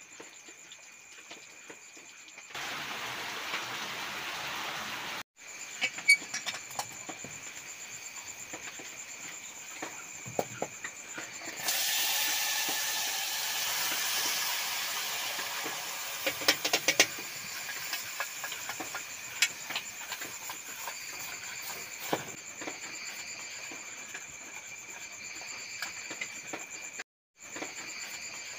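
Small stream fish sizzling as they are tipped into a pot of hot masala over a wood fire: a loud hiss about twelve seconds in that slowly fades, with clinks of metal tongs on the pot. Crickets chirp steadily throughout.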